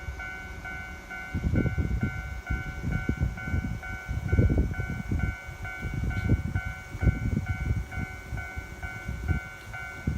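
Japanese level-crossing warning bell ringing, an electronic ding repeating about twice a second, with an irregular low rumble underneath.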